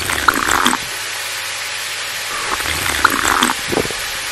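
Food frying in a pan, a steady sizzle, with a few light knocks.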